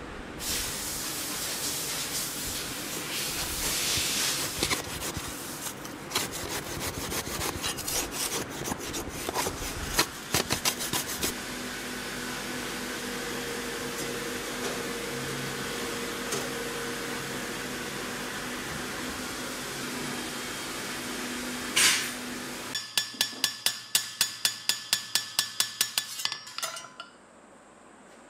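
A hot steel knife blade sizzling and crackling in a quench tank, followed by a steady hum. Near the end, a quick run of about a dozen sharp, ringing metal-on-metal strikes, about four a second.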